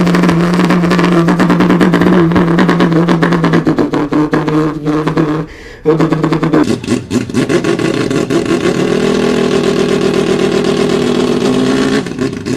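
A person imitating a car engine with their voice: a buzzing, fluttering drone held for about five seconds, a brief pause for breath, then a second, higher-pitched drone.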